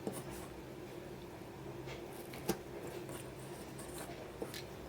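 Quiet handling of a small enamel pin and its packaging: a few light taps and clicks, the sharpest about two and a half seconds in, over a low steady hum.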